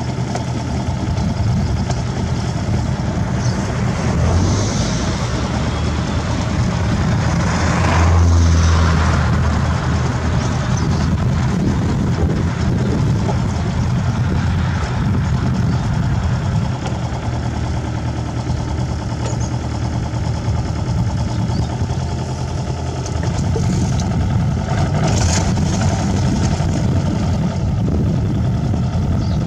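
Farm tractor engine running steadily as it pulls a mounted six-row seeder, swelling louder for a moment about eight seconds in.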